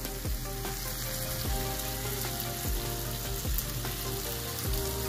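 Butter sizzling steadily in a non-stick skillet as sliced mushrooms, chopped onion, garlic and snap peas fry in it.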